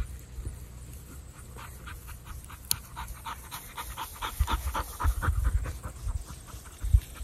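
A dog panting quickly, about four breaths a second, with a low rumble on the microphone building in the second half.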